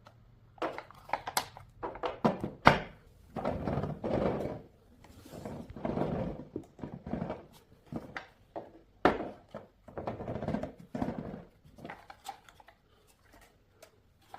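Toy truck being handled: a series of plastic knocks and clacks with stretches of rubbing or scraping, the sharpest knocks about three and nine seconds in.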